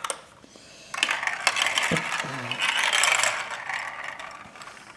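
Marbles rolling and clattering down a plastic Hubelino-style marble run track, a rapid run of clicks and rattles that starts about a second in and dies away near the end.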